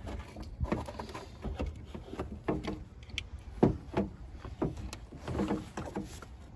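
Irregular knocks and clicks from handling a car headlight assembly and plugging in its wiring connector, the sharpest about three and a half seconds in, over a steady low rumble.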